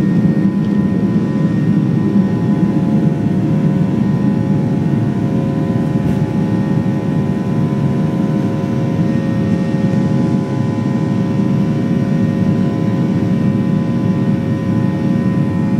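Airliner's jet engines at takeoff power: a steady loud rumble with several steady whining tones over it.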